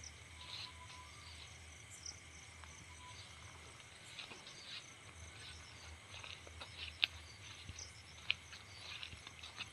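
Crickets and other night insects chirping steadily in short repeated pulses, with scattered faint clicks and two sharper clicks about seven and eight seconds in.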